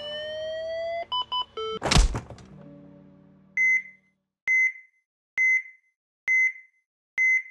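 Synthesized logo sound effects: rising siren-like tones, a few quick electronic bleeps, and a heavy hit about two seconds in that dies away. Then a single electronic beep just under once a second, five times, like a heart monitor.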